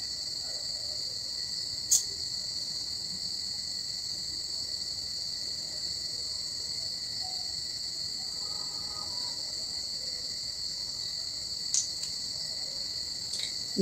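Steady, high-pitched chorus of insects, with two brief clicks, one about two seconds in and one near the end.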